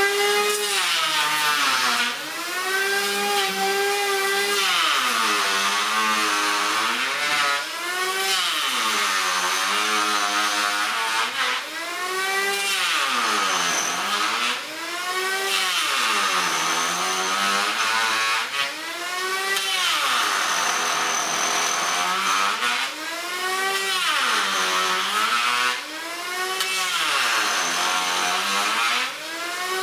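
A motor running, its pitch rising and falling over and over, every two to three seconds.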